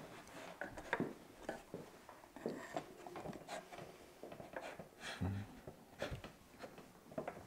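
Faint clicks, taps and wooden rubbing from a wooden puzzle box being handled, its sliding wooden rods pushed in and out, with a few sharper knocks scattered through.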